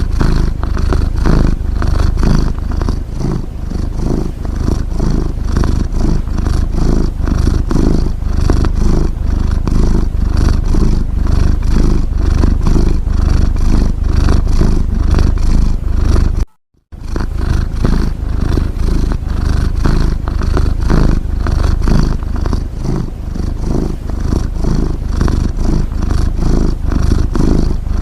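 A cat's loud, continuous low rumble close to the microphone, made of rapid fine pulses like a purr. It breaks off in a short silent gap about seventeen seconds in, then resumes.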